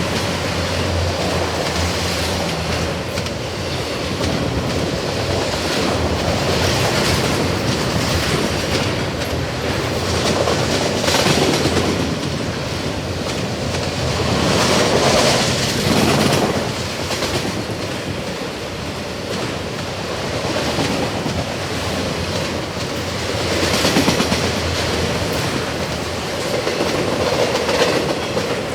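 Long freight train of empty autorack cars rolling past: steady wheel-on-rail noise that swells and fades several times.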